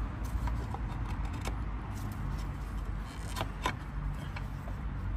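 Light metallic clicks and knocks as a cast metal engine mount bracket is worked loose and lifted out of a car's engine bay by hand, the sharpest about a second and a half in and twice around three and a half seconds in, over a steady low background rumble.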